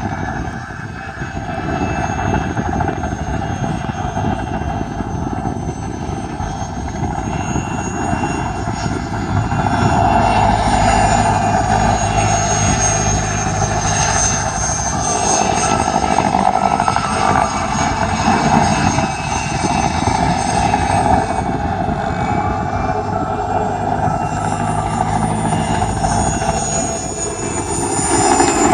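Mil Mi-2 helicopter in flight: its twin turboshaft engines whine high with a slightly wavering pitch over the steady rotor noise. It grows louder about ten seconds in.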